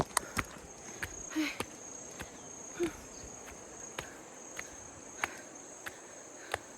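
A steady high-pitched drone of insects, likely crickets, with sharp clicking steps about every half second.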